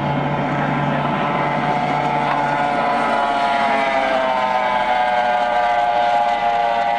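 Racing outboard engine of a speedboat running flat out as the boat passes close by. Its high, steady engine note holds pitch at first, then drops in pitch through the second half as the boat goes past.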